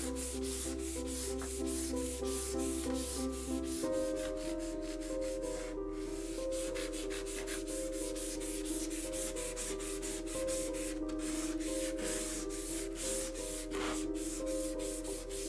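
150-grit sandpaper on a wooden sanding block rubbed quickly back and forth along the steel blade of an old hand saw, several strokes a second with a brief pause near the middle, scouring off rust and grime. Background music with sustained notes plays underneath.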